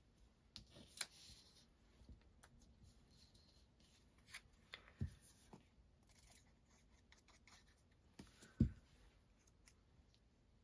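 Faint handling of paper and card: small rustles and light taps as a paper label is positioned and pressed onto a card bookmark, with two low thumps about five seconds and eight and a half seconds in.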